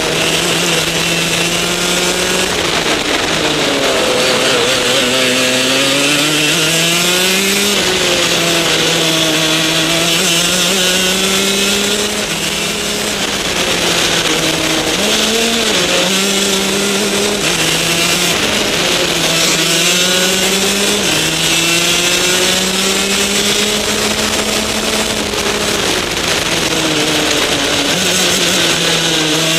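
Rotax DD2 kart's 125cc two-stroke single-cylinder engine at racing speed, its pitch climbing under acceleration and dropping off for the corners, again and again.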